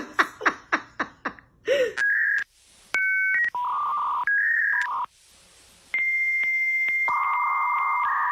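Electronic telephone tones: keypad dialling tones and held beeps, changing pitch every half second or so, then a long steady tone. They follow a quick run of short repeated sounds, about four a second, in the first second and a half.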